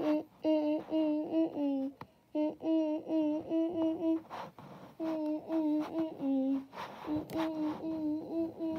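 A high-pitched voice humming a tune without words, in runs of short stepped notes broken by brief pauses, with a faint click or two of cards being handled.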